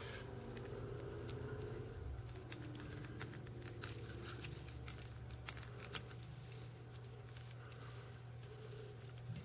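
Small handling noises at a fly-tying vise: a quick run of light, sharp clicks and ticks from about two to six seconds in, over a steady low hum.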